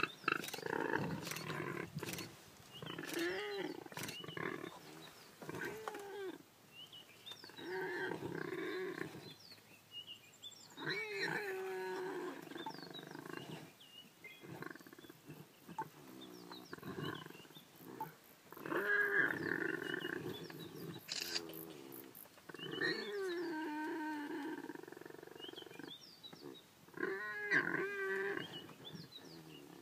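Leopard growling and snarling while it digs into a burrow, in a series of calls a second or two long with short pauses between.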